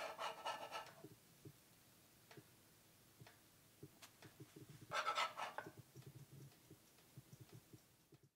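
Metal spatula scraping across a hot plate as it is slid under a soufflé pancake: two short scrapes, one in the first second and another about five seconds in, with faint scattered ticks between.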